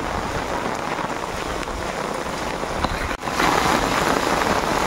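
Heavy rain falling steadily. About three seconds in it cuts out for an instant and comes back louder.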